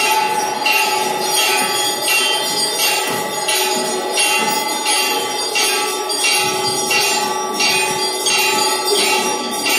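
A bell rung over and over, about two strokes a second, its tone ringing on steadily between strokes.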